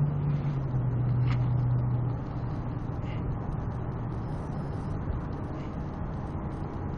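Road noise inside a moving car: a steady rumble of tyres and engine. A low hum under it steps down in pitch and fades about two seconds in.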